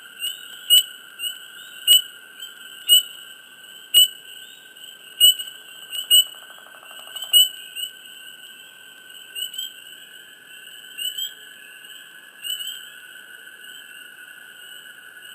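Frogs chirping close up: short, sharp, high chirps about once a second, thinning out in the second half, over a steady high-pitched chorus. A brief buzzing trill comes in lower about six seconds in.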